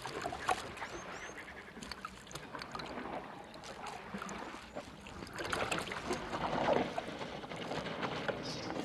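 African elephant's trunk snuffling and sloshing water in a toilet cistern, in soft irregular splashes that grow louder about halfway through.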